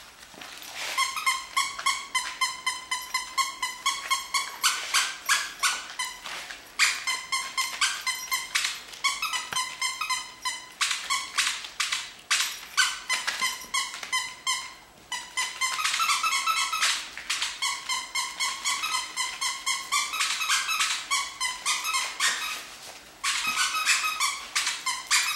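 Young toy goldendoodle puppies yipping and squealing, high-pitched and over and over in quick runs, with a few short pauses.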